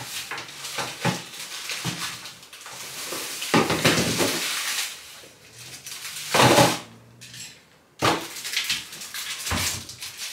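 Rummaging through a bathroom vanity cabinet: plastic bottles and containers knocking and clattering against each other, with rustling, in uneven bursts.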